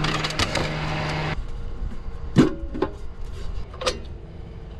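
Air-conditioning unit running with a steady hum and fan noise that cuts off abruptly about a second and a half in; after that it is quieter, with a few sharp knocks and clicks.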